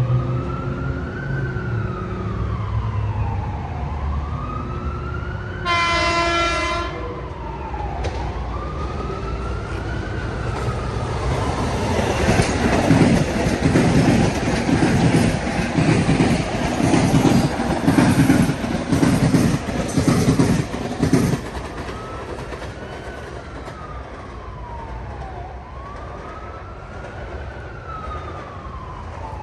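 A train passes with a rhythmic clatter of its wheels from about twelve to twenty-one seconds in, and a horn sounds once, briefly, about six seconds in. Throughout, a siren wails slowly up and down.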